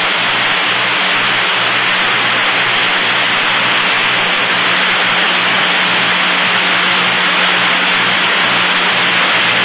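Steady radio static hiss on an open communications channel between transmissions, with a low hum underneath.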